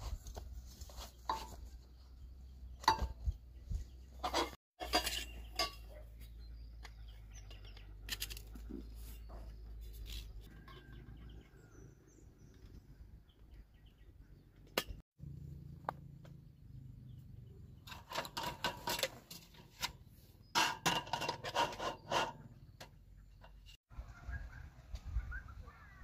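Metal parts of folding camp furniture clinking and clacking as a chair and table are unfolded and set up. The sharp knocks come in scattered strikes, then in two dense bursts of clatter about two-thirds of the way in, over a low rumble.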